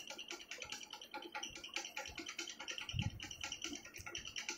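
Plastic clothing packets crinkling and rustling as they are handled and stacked, with a soft low thump about three seconds in.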